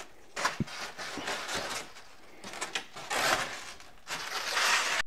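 Styrofoam packing sheets rustling and scraping against cardboard as they are lifted out of a box, in several bursts, with a sharp click about half a second in.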